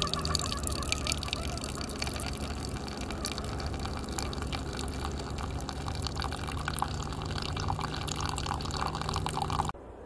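Coffee machine dispensing a thin stream of coffee into a ceramic mug: a steady trickle and splash of liquid over the machine's steady low hum, which cuts off sharply near the end.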